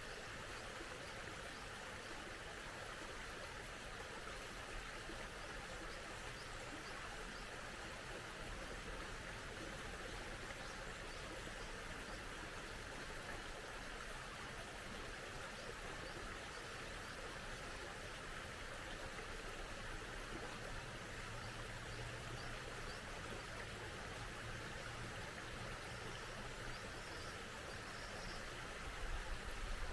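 Mountain stream flowing steadily, a continuous even rush of water. A few faint bird chirps come near the end, and a brief low rumble just before it.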